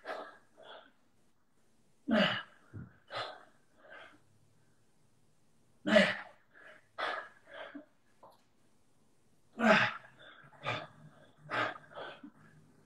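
Short, forceful breaths of a person straining through handstand conditioning, coming in clusters of two or three every few seconds.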